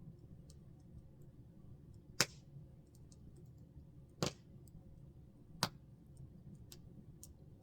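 Campfire crackling: three sharp pops and a scatter of fainter ticks over a steady low background noise.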